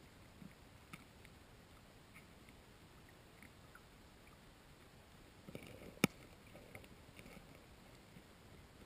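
Faint underwater sound of carp feeding on the bottom: scattered soft clicks and crunches, busier about five and a half seconds in, with one sharp click just after six seconds.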